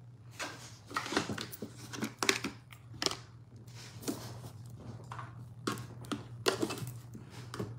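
Handling noises: a string of irregular knocks, clicks and rustles as objects are moved about and a plastic jug is picked up, over a steady low hum.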